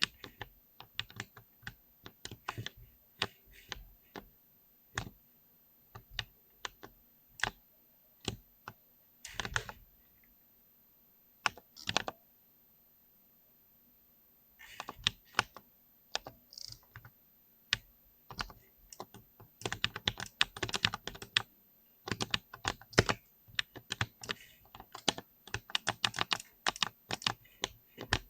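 Mechanical keyboard with Cherry MX Silver linear switches being typed on. The keystrokes are scattered at first, stop for about two seconds near the middle, then come in quicker, denser runs in the second half.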